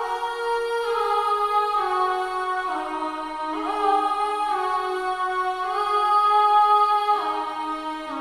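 Sampled vocal 'aah' pad chords played back from a software sampler, held and moving to a new chord about every second, with the notes sliding into each other at each change.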